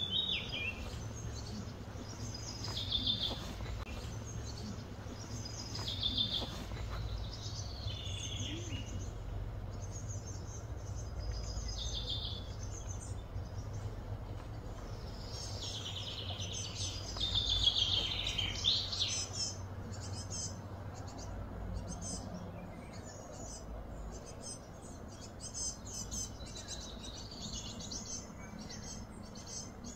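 Birds chirping and calling in short repeated phrases, busiest in the first two-thirds, over a steady low hum.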